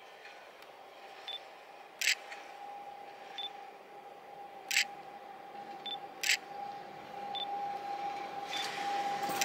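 MOB Ge 4/4 III electric locomotive approaching, heard as a steady high hum that grows louder toward the end. Three sharp clicks cut in about two, five and six seconds in.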